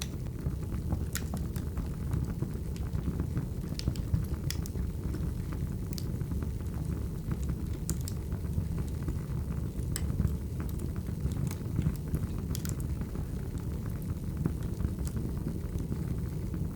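Wood fire burning: a steady low rumble with irregular sharp crackles and pops from the burning logs.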